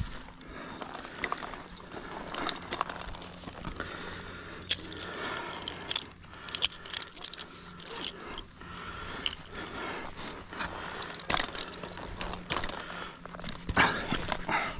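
A tree climber's rope-and-harness gear working against a trunk: metal hardware jangling and clicking, with rope and boots scraping on bark in irregular scuffs. Heavy breathing comes through between them, strongest near the end.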